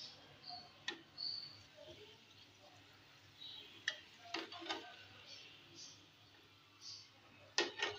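Puris deep-frying in hot oil in an aluminium pan: a faint sizzle with small high crackles, and a slotted spoon clicking sharply against the pan about six times, loudest in a quick pair near the end.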